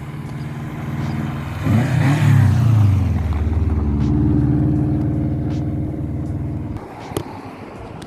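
Car engine revving hard as it accelerates past, its pitch swinging about two seconds in, then holding a steadier note until it cuts off suddenly near the end. A single sharp click follows.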